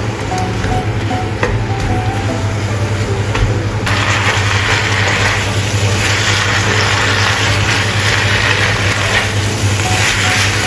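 Amaranth leaves in fermented bean curd sauce sizzling in a wok while a wooden spatula stirs and tosses them. The sizzle grows louder about four seconds in. A steady low hum runs underneath.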